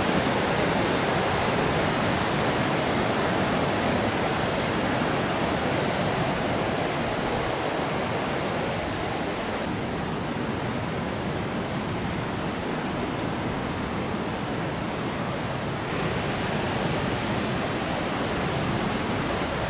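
Ocean surf breaking on a beach: a steady, even rush of waves and whitewater. Its tone shifts slightly about ten seconds in and again about sixteen seconds in.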